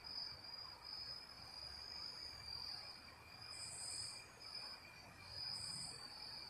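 Insects trilling in a steady, unbroken high-pitched chorus, with two short, higher soft hisses, one about halfway through and one near the end.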